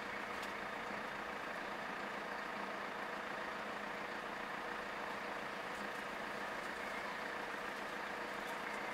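Steady, even background noise with no distinct events, like a low outdoor hum.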